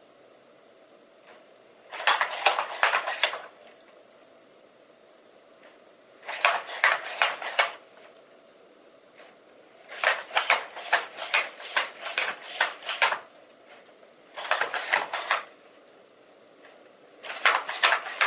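Aldebaran NAO humanoid robot walking in short bouts: a quick clicking clatter of its steps and joints on the hard floor. It comes in five stretches of one to three seconds, with quiet pauses between.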